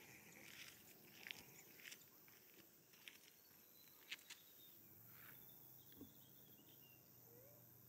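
Near silence: faint scattered clicks and rustles, with a faint high chirp about halfway through.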